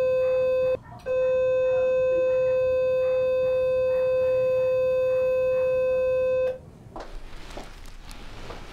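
Ellman radiosurgery unit's activation tone: a steady electronic beep held while the cutting tip is energised on tissue. It breaks off for a moment just under a second in, then sounds again for about five more seconds before stopping.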